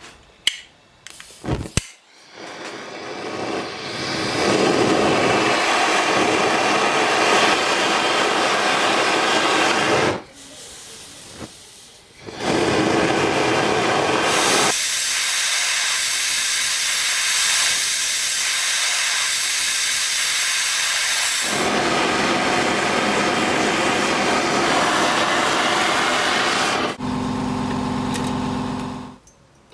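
Gas torch flame hissing steadily while melting sterling silver for an ingot. It drops out briefly about ten seconds in, comes back, and gets brighter for a stretch, then gives way near the end to a lower steady hum lasting about two seconds.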